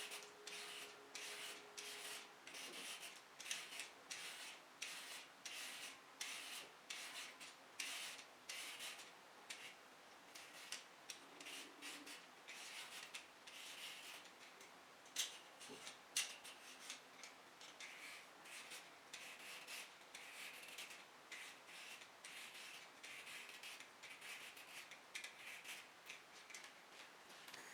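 Faint, irregular rubbing or scratching strokes, a few each second.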